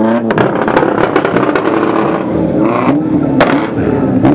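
Proton Satria hatchback engine through its exhaust: a held high-rev note cuts off and the exhaust crackles and pops as the revs fall. A few throttle blips follow, with one sharp pop about three and a half seconds in.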